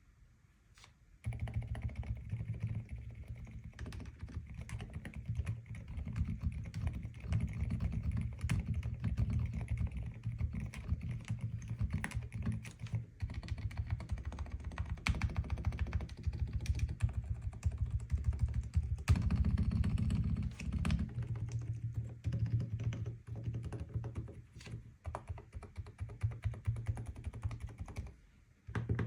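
Epomaker QK108 mechanical keyboard being typed on in continuous fast runs of keystrokes, its clacks heaviest low in pitch. The typing starts about a second in and stops briefly near the end.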